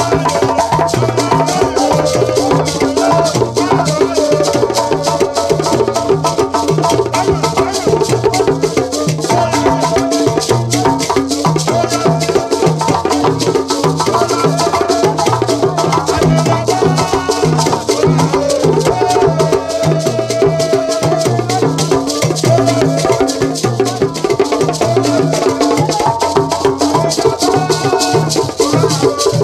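Live Ghanaian drumming group: a hand drum, stick-struck drums, beaten wooden boxes and beaded gourd shakers keep up a steady rhythm while men sing and chant over it.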